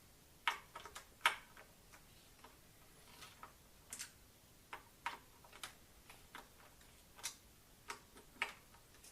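Faint, irregularly spaced sharp clicks, about a dozen, as a Presticycle torque key tool and its bit are worked on bicycle screws to unscrew them.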